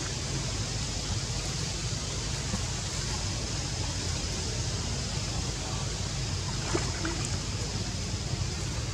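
Steady outdoor background noise with a low rumble and a faint high, even tone, with a couple of faint ticks about seven seconds in; no distinct splashes or calls stand out.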